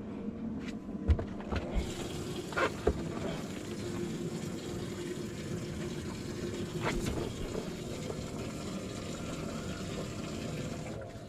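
Steady rush of running water that starts about two seconds in, over a low steady hum, with a few sharp knocks near the start and one more near the middle.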